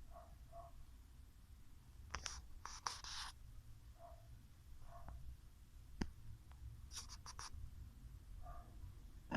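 Sleeping dog breathing with faint snores and soft whistling notes on the breath. Scratchy rustling comes twice, about two seconds in and again about seven seconds in, with a single click between them.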